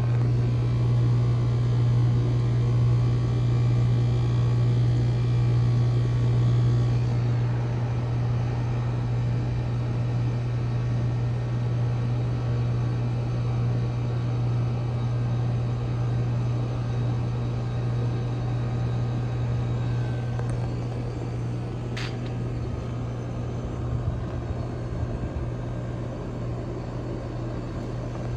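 2010 Rheem Classic heat pump outdoor unit running through its defrost cycle: a steady low compressor hum with a hissing layer that fades about seven seconds in. A single sharp click comes about twenty-two seconds in.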